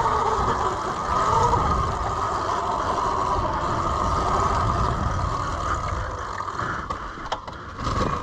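Sur-Ron electric dirt bike being ridden: a steady motor whine over a low rumble, easing off a little near the end.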